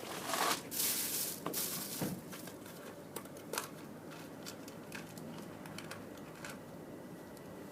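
Hands handling small tools and wire connections while splicing 24-volt control wires: rustling and scraping for the first two seconds or so, then a few scattered sharp clicks.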